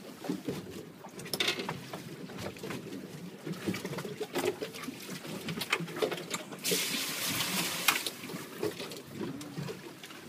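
Seawater lapping and slapping against a small fishing boat's hull, with scattered small knocks and clicks. About seven seconds in, a louder hiss lasts about a second.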